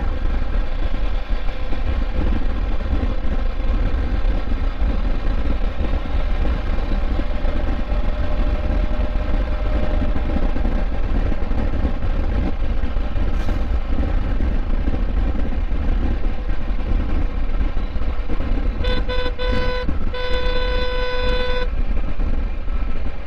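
Motorcycle riding at highway speed, its engine running steadily under heavy wind rush. Near the end a vehicle horn sounds twice, a short toot and then a longer blast.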